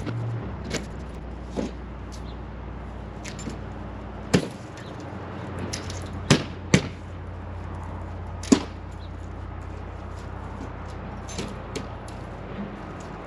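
Scattered sharp knocks and clicks, a handful of them louder, over a steady low hum.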